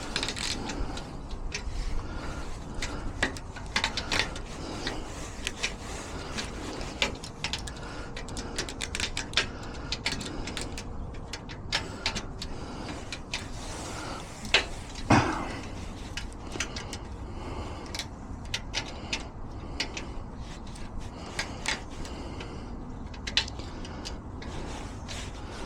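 Small metal clicks, taps and scrapes of lock-picking tools working inside a site box lock, irregular and close together, with one louder metallic knock about halfway through.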